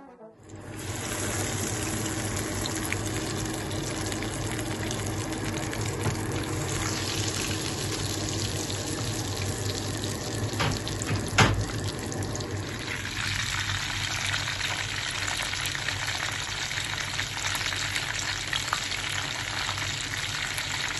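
Marinated chicken pieces frying in hot oil in a wok: a steady sizzle with crackling, over a low hum. One sharp knock about eleven seconds in.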